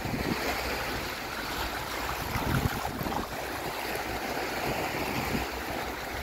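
Small sea waves washing and swirling over a rocky reef shore, a steady rushing wash with an irregular low rumble beneath it.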